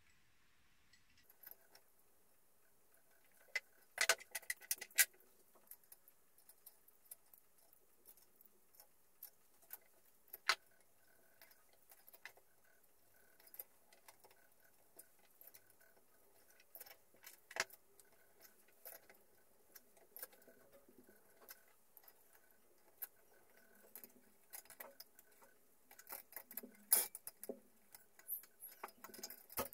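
Steel spanner and nuts clinking and clicking irregularly against the studs of a Mercedes-Benz OM 615 diesel cylinder head as the nuts are fitted and tightened by hand. The loudest clusters of clicks come about four seconds in and again near the end.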